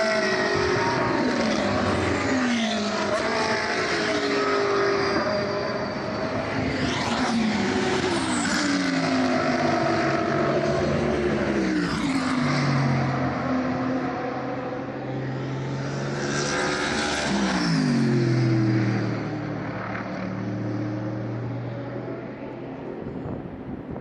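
GT3 race cars passing at speed, several in succession, their engines revving and dropping in pitch again and again as they shift gear. The sound dies away near the end.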